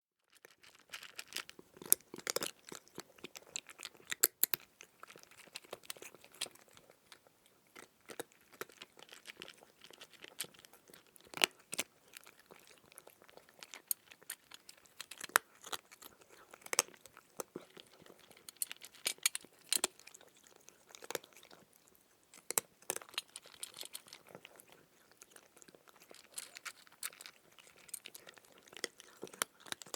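A kitten crunching and chewing dry kibble: quick, irregular crunches, several a second, with short pauses between mouthfuls.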